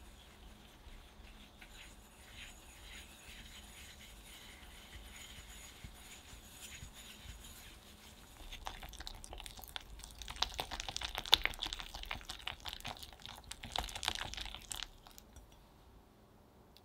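Silicone whisk mixing powdered sugar into softened butter in a glass bowl. Soft scraping at first, then from about eight seconds in a fast run of clicks and scrapes as the whisk beats against the bowl, stopping about a second before the end.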